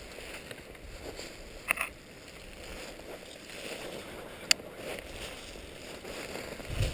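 Footsteps crunching through snow on a steep slope, uneven and continuous, with two sharp clicks, one about a second and a half in and another about four and a half seconds in.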